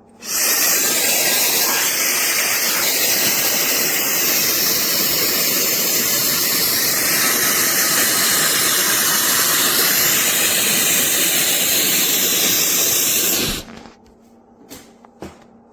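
SUPGALIY mini travel hair dryer blowing at full power: it starts suddenly, runs as a steady loud rush of air for about thirteen seconds, then cuts off. A few short clicks follow near the end.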